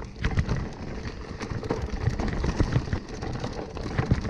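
Mountain bike descending a rocky trail: tyres crunching over loose stones and the bike rattling with many quick small knocks over a steady low rumble.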